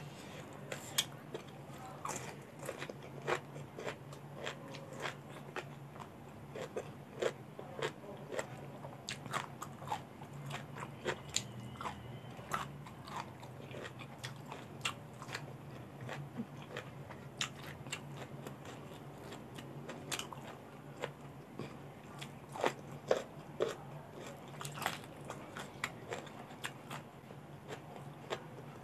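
Close-miked eating of raw vegetables dipped in shrimp-paste chili dip: many crisp crunching bites and chewing, with wet mouth clicks, over a faint steady low hum.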